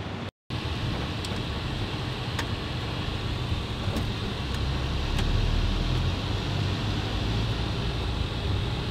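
Steady road and engine rumble of a car driving, heard from inside the cabin, with a few faint ticks. The sound drops out for a split second near the start.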